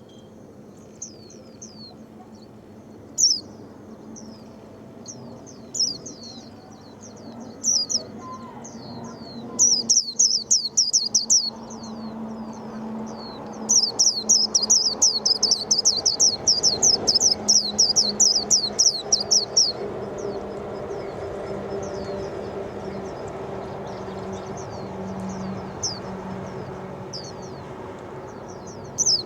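White-eye singing: scattered high, quick down-slurred notes, then two runs of rapid chattering song about ten and fourteen seconds in, the second lasting about six seconds. A low steady hum sits underneath.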